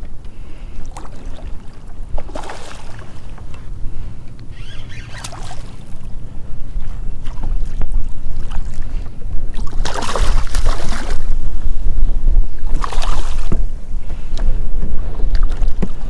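Wind buffeting the microphone, with water splashing several times as a hooked red drum thrashes at the surface beside a kayak; the heaviest splashing comes about two-thirds of the way through.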